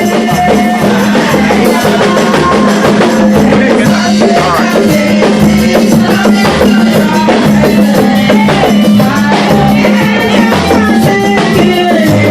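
Loud live band music with a drum kit beating steadily under a held low note, with singing voices over it.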